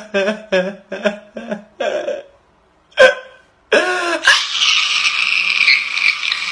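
A man crying: a run of short sobbing gasps, a brief pause, then from about four seconds in a long, high wail that is held to the end.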